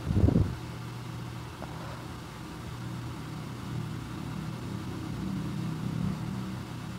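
A steady low hum, with a brief low thump just after the start.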